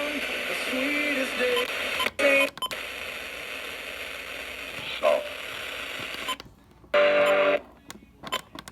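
Radio broadcast of a severe thunderstorm warning being read, the voice buried in static hiss, with a few short beeps. About six seconds in, the audio drops out, a brief buzzing tone sounds, and the signal cuts in and out.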